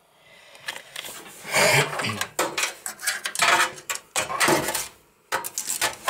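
Parts being handled and fitted inside a desktop computer case: irregular knocks, clicks and rustles as components and cables are worked into place.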